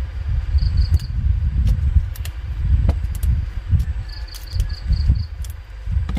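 An insect chirping in short, evenly spaced high pulses, a run of three and then about six a few seconds later, over a loud, uneven low rumble with scattered clicks.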